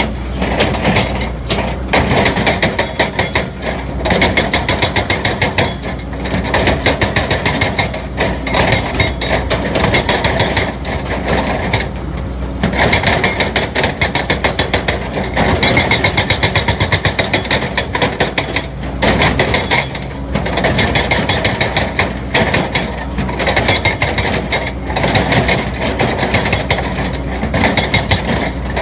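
Excavator working: its engine runs under load with a rapid metallic clatter and knocking that comes and goes, now and then settling into an even rattle of about ten strokes a second.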